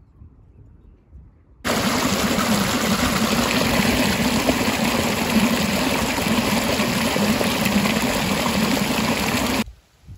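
Irrigation water gushing and splashing into a soil furrow: a loud, steady rush that starts abruptly about two seconds in and cuts off shortly before the end.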